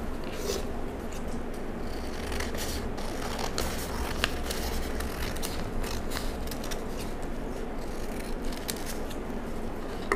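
Sewing scissors cutting through a paper sleeve pattern: a run of irregular snips, with the paper rustling as it is handled.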